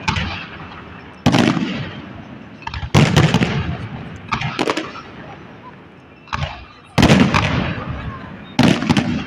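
Fireworks display: aerial shells bursting one after another, about eight sharp bangs, some in quick pairs, each trailing off in a rumbling echo.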